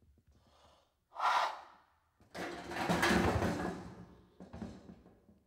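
Heavy breathing and snorting of a dinosaur sniffing around: a short breathy snort about a second in, then a longer, louder rough huff, and another short snort near the end.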